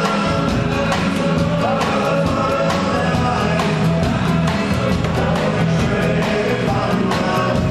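Live country band playing, a drum kit keeping a steady beat under the other instruments.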